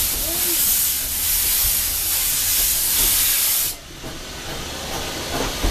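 Steady, loud hiss of steam from a narrow-gauge steam locomotive, cutting off suddenly a little before four seconds in. A quieter background follows, with a short knock near the end.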